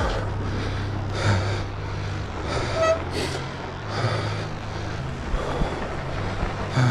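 A fat-bike rider breathing hard in rhythmic rushes while riding, over a steady low rumble. A brief horn-like toot sounds about three seconds in.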